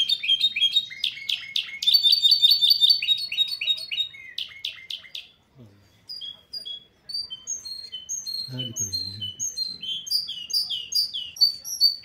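Goldfinch–canary hybrid singing: fast runs of bright chirps and trills. The song breaks off about halfway through and starts again a second or so later.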